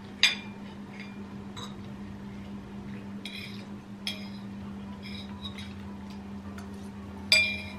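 Metal fork clinking against a ceramic dinner plate while eating: several separate short ringing clinks, the loudest near the end, over a steady low hum.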